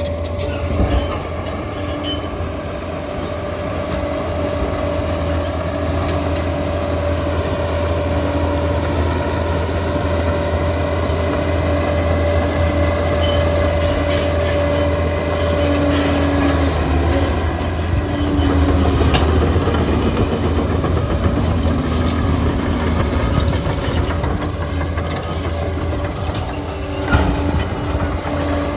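Liebherr PR 746 crawler dozer's diesel engine working steadily, with a high squealing tone over it that holds for the first half and then wavers.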